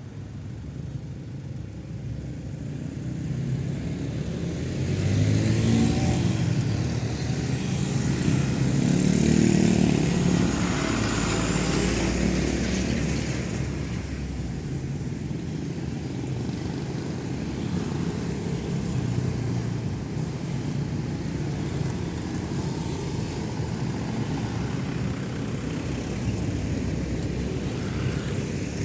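Road traffic on a busy main road: motorbike and car engines and tyre noise passing close by. Two louder vehicles go past about five and ten seconds in, their engine pitch rising and falling, and then a steady stream of traffic noise.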